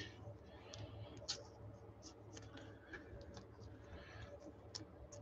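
Faint, scattered light clicks and rustles of trading cards and plastic card sleeves being handled, over a low steady hum.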